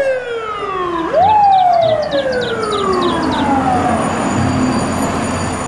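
Fire engine siren rising quickly and then slowly falling in pitch, twice.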